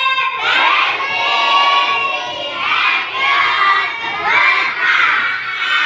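A classroom of young children shouting out together in high voices, many at once, in loud waves.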